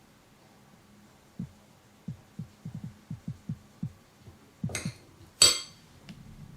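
Soft low thumps of hands working and pressing a wheat-starch dumpling on the work surface, about a dozen in a couple of seconds, then two brief louder clatters, the second the loudest.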